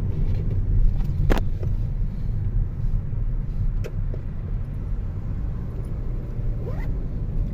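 Steady low rumble of road and engine noise inside a moving car's cabin, with two short clicks, one just over a second in and one about four seconds in.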